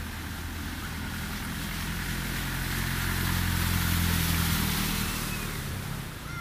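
A pickup truck's engine running as it drives through ankle-deep floodwater, its wheels throwing up splashing water. The sound builds as it approaches, is loudest about four seconds in as it passes, then fades.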